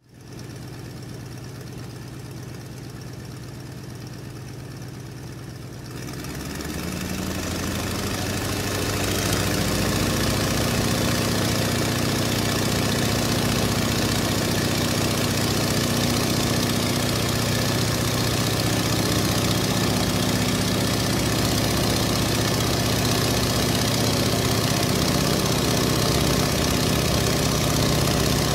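An engine running steadily, a low hum that grows louder and fuller about six seconds in and then holds.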